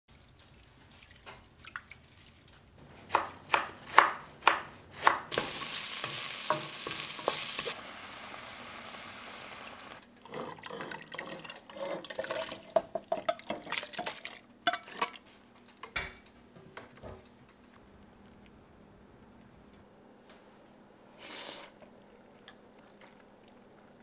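Cooking sounds. A few sharp clinks come first, then a loud hiss for about two and a half seconds that drops to a softer hiss. Then a metal spoon scrapes and clatters against a pan as curry is scraped into a pot, with a few scattered knocks after.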